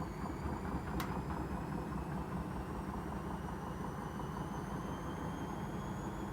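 Arçelik washing machine running wild in its spin cycle: a heavy rumbling and rattling of the shaking machine under a high motor whine that slowly rises in pitch as the drum speeds up. A sharp click about a second in.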